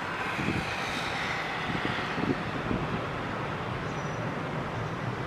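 Distant jet engines of a taxiing Boeing 767 at low power: a steady rush with a faint high whine that drifts slightly lower in the first two seconds. Light wind buffets the microphone.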